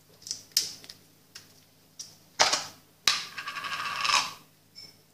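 Plastic tubs and lids being handled on a counter: several light clicks and knocks, then a louder rasping plastic scrape about three seconds in, lasting about a second. A brief faint tone near the end.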